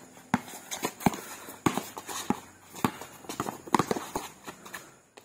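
Basketball being dribbled hard on an outdoor concrete court: a string of sharp bounces, about two a second, uneven in spacing as the player drives.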